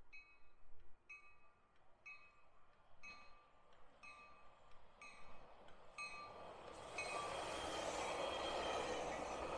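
A bell rings about once a second as an ACE commuter train approaches. From about seven seconds in, the rumble and rail noise of its bilevel passenger cars rises sharply as they pass close by.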